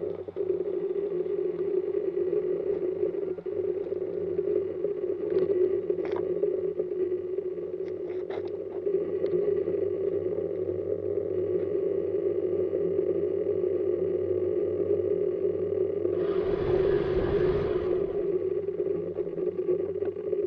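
A steady motor hum, with a few short ticks and a rush of noise lasting about two seconds near the end.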